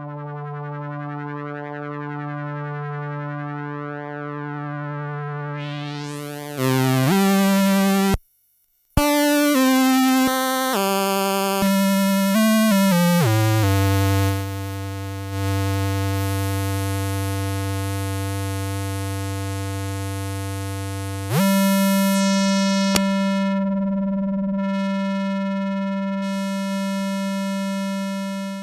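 Yamaha CS01 analog monosynth playing one note at a time. A held low note wobbles slowly and turns much brighter about six seconds in. Then comes a run of short notes at changing pitches, a long low note, and a slide up into a higher held note.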